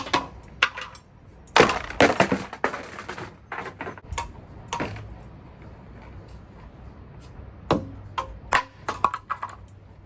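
Junk being smashed: a series of hard blows with cracking and clattering as pieces break, the heaviest flurry a second or two in and another near the end.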